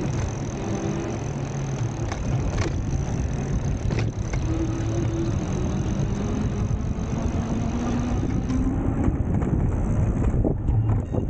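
Steady road traffic noise: motor vehicles running past, one engine's pitch rising slowly through the middle, with a few short clicks.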